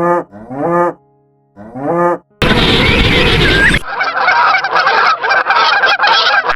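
Farm animal calls: three short honking calls, each rising then falling in pitch, in the first two seconds. Then a loud rushing noise for about a second and a half, then a dense, pulsing chatter of many calls.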